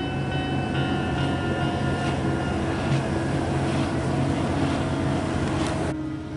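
A large ship's engines and machinery running: a steady low hum under a broad rush. The sound breaks off a little before the end.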